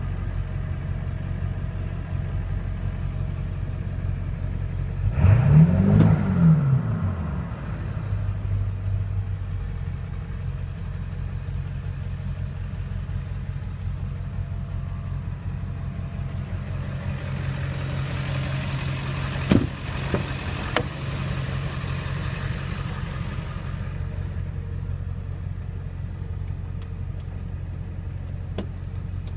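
Ford 7.3 L Powerstroke V8 turbo diesel idling, revved once about five seconds in, the pitch rising and falling back to idle. A single sharp knock about twenty seconds in.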